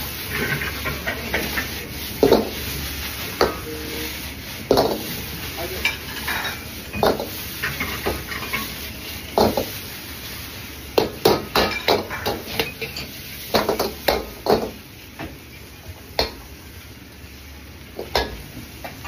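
Metal ladle clanking and scraping against a wok as fried rice is stir-fried, over a steady sizzling. The clanks come irregularly, in a quicker run a little past the middle.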